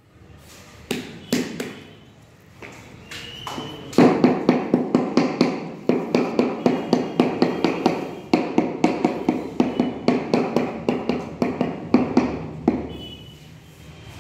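A mallet tapping a 600 mm floor tile to bed it into a layer of tile adhesive. A few scattered taps come first, then a steady run of about three taps a second that lasts some eight seconds and stops shortly before the end.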